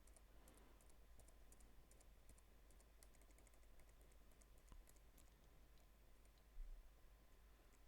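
Near silence, with faint scattered clicks of a computer keyboard in use.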